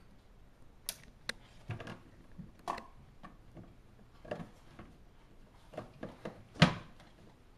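Toy pots, pans and utensils clattering and knocking on a wooden play kitchen as a toddler handles them: an irregular string of light clicks and taps, with one louder knock near the end.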